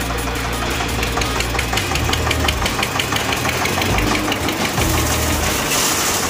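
Eicher 242 tractor's diesel engine running steadily while its front loader lifts a full bucket of gravel, with a rhythmic diesel clatter over the low hum. A short hiss comes in near the end.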